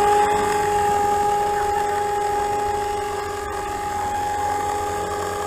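FORZA 450 RC helicopter hovering: a steady high whine from its motor, gears and rotors. The uploader traced an abnormal noise during rotor spin to a partly stripped main gear.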